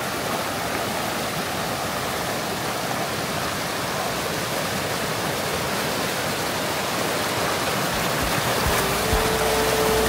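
Steady rush of flowing water, an even hiss with no breaks. Near the end, music comes in with low beats and a held synth tone.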